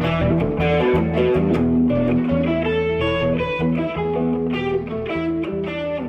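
Instrumental rock music: electric guitar lines with sustained notes over bass guitar, getting a little quieter in the second half.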